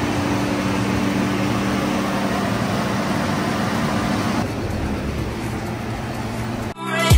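Car running: a steady low hum under a wide rushing noise, cut off abruptly near the end, where music starts.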